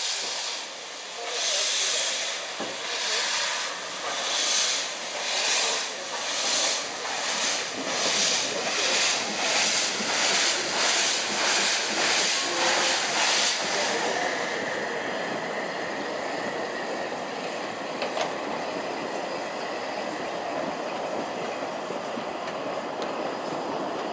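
Saxon VI K class narrow-gauge tank locomotive 99 1715-4 pulling away with its train, its exhaust chuffing, at first about one chuff every second and a half and quickening to nearly two a second. The chuffs stop about 13 seconds in, leaving the steady rolling noise of the coaches passing close by.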